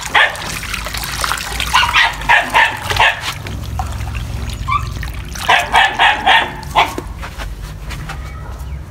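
A dog barking in short rapid runs, about three times. Underneath is water from a garden hose running steadily into a pan of bran and flour mash.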